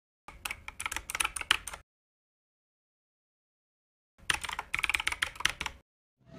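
Keyboard typing sound effect: two runs of rapid key clicks, each about a second and a half long, with dead silence between them.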